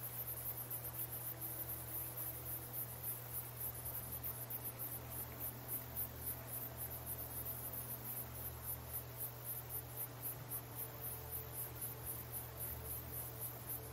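Insects chirping in a steady, even rhythm, about three chirps a second, over a low steady hum.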